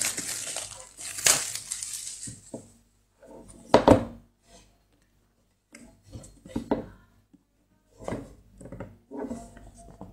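A smartphone's retail box and packaging being handled during unboxing: rustling for the first two or three seconds, then scattered knocks and scrapes of the box and its parts, the loudest about four seconds in.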